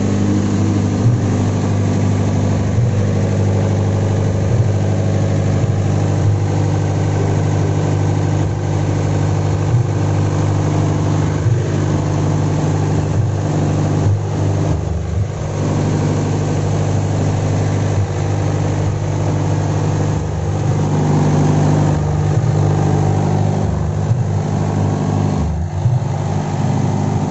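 Open-frame diesel generator set running at a steady governed speed, a constant low engine drone.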